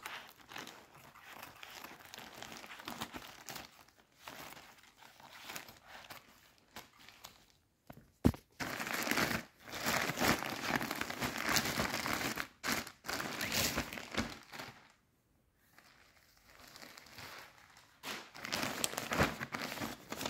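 Polythene mailer bag being cut open with scissors and the plastic-bagged contents pulled out: irregular plastic crinkling and rustling, busiest through the middle, with one sharp click a little before that and a brief pause later on.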